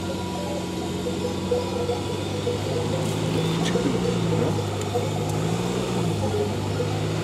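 Land Rover Discovery 5 engine running as the SUV crawls off-road, its note rising and falling a few times with the throttle.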